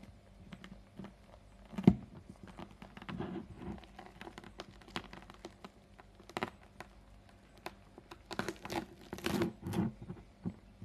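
Close-up sounds of eating fresh durian: pulling at the soft flesh and seed pods and chewing, heard as scattered clicks, crinkles and wet mouth noises. A single sharp knock about two seconds in is the loudest sound, and the handling noises grow denser near the end.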